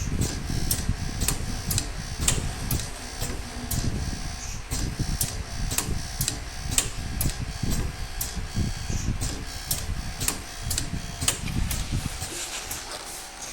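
Pneumatic connector socket strength testing machine running its test loop, clicking sharply about twice a second over a low rumble that drops away near the end.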